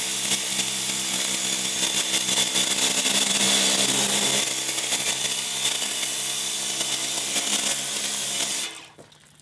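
DeWalt 20-volt cordless pressure washer (DCPW550) running, its pump motor humming steadily under the hiss of the turbo-nozzle spray. It cuts off suddenly near the end.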